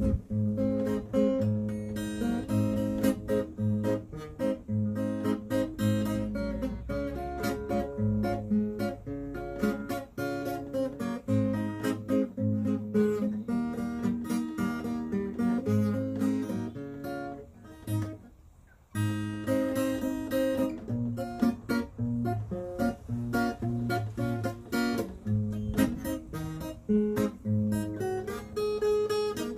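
Acoustic guitar playing a tune in plucked and strummed chords, stopping for a moment about two-thirds of the way through before carrying on.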